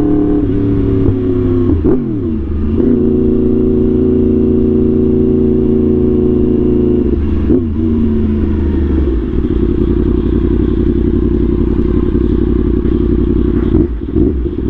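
Yamaha R1 sport motorcycle's engine running hard under way. Its pitch drops and climbs again about two seconds in and again midway, then holds high, with a short dip near the end.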